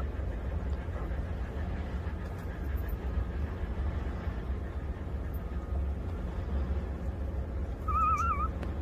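A steady low rumble throughout, with a newborn puppy giving one short, wavering squeal about eight seconds in.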